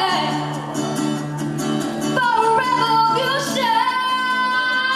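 A woman singing into a microphone to acoustic guitar accompaniment; a new phrase begins about two seconds in and she holds a long note near the end.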